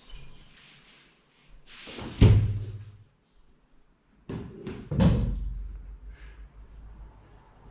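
A hand-held umbrella popped open: a quick rushing sound ending in a sharp snap and thump about two seconds in. A few seconds later, several clacks and a thump as the open umbrella is set down on a tile floor.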